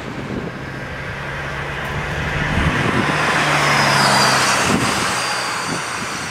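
Jet airliner engines passing: a steady roar that swells to a peak about four seconds in and then fades, with a high whine falling in pitch around the loudest moment.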